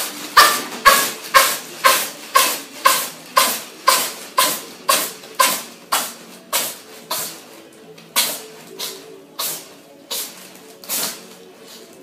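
A tabby cat sneezing in a long fit of about twenty sneezes in a row, roughly two a second, the first few the loudest, the sneezes growing weaker and slower toward the end.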